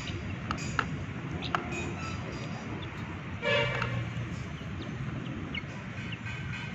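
Chickens pecking egg crumbs off a plastic plate, with a few sharp beak taps in the first two seconds, over a steady low hum. About halfway through, a short toot rings out, the loudest sound here.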